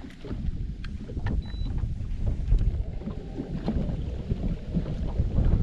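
Wind rumbling on the microphone, with scattered small knocks and clicks.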